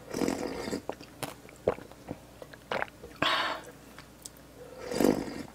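Close-miked eating sounds: a person chewing and biting food, with three louder noisy stretches, near the start, about three seconds in and near the end, and short sharp mouth clicks between them.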